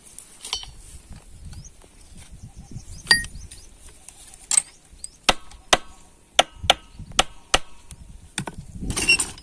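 Hammer blows on metal: a single strike about three seconds in, then a run of about six sharp strikes roughly two a second, each with a short metallic ring, as a 3 HP monoblock pump motor's casing is knocked open. A scraping, rattling noise follows near the end.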